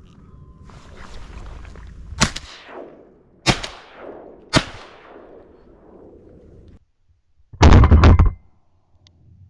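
Three shotgun shots, a little over a second apart, each trailing off in an echo. Near the end comes a short, very loud clatter lasting about a second.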